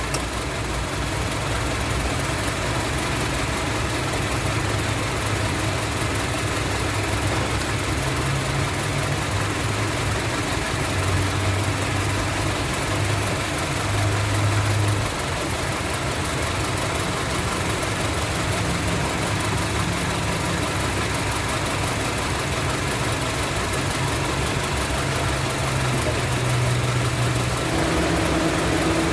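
Honda CR-V four-cylinder engine idling roughly with a misfire on cylinder 2, the idle wavering slightly. The mechanic traces the misfire to a failed number-2 ignition coil (P0352).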